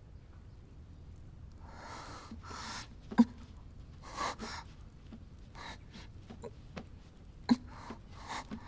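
A person's soft breaths and sighs, a few short exhales spread over several seconds. A sharp tap or click comes about three seconds in and another about seven and a half seconds in.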